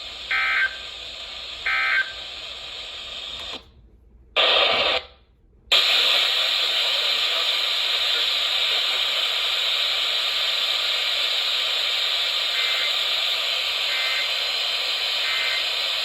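Radio receiver sounding the Emergency Alert System end-of-message data bursts: two short buzzy digital bursts about 1.4 s apart. About 4 s in, the signal cuts out twice briefly, then steady radio static hiss. Three faint similar bursts come through the static near the end.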